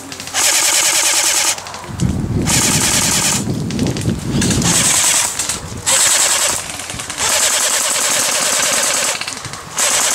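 Airsoft electric guns (AEGs) firing long full-auto bursts: four sustained strings of rapid shots with short pauses between them. A low rumble runs underneath for a few seconds in the middle.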